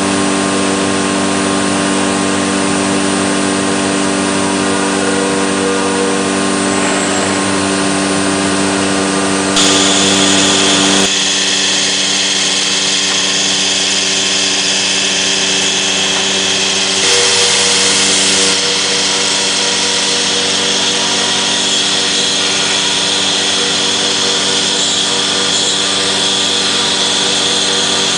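SHMS1828D CNC router cutting MDF: a steady whine of several tones over a hiss. The sound gets briefly louder and brighter twice, about ten and seventeen seconds in, and the mix of tones shifts around eleven seconds in.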